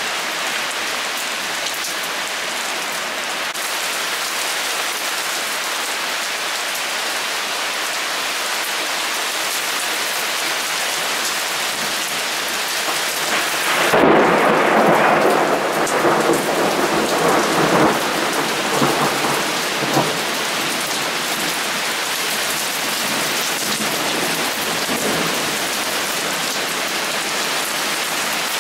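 Heavy rain pouring steadily. About halfway through, a sudden loud clap of thunder breaks in and rumbles on in several rolls for about six seconds.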